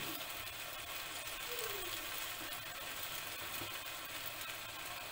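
Lamb liver and onions sizzling steadily in an oiled frying pan, with a fine crackle.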